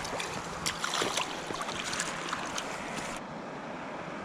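Shallow creek water running over rocks: a steady rushing with small splashes and trickling ticks through the first three seconds, after which the brighter hiss drops away.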